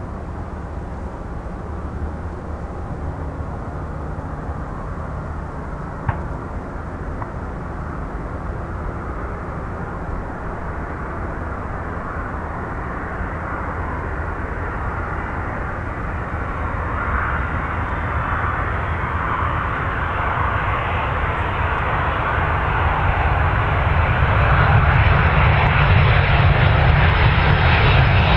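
Boeing 767-300 airliner's twin jet engines during the landing: a steady jet rumble that grows louder and brighter as the plane comes down to the runway and rolls past, loudest near the end.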